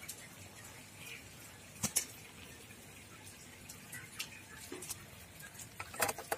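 Scales being scraped off a climbing perch against a curved iron blade: faint, with a couple of sharp scraping clicks a little under two seconds in and a quick run of them near the end.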